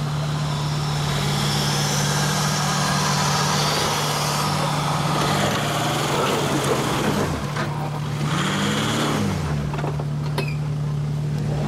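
Jeep engine running with a steady drone, its revs dropping and then swelling and falling again a couple of times in the middle.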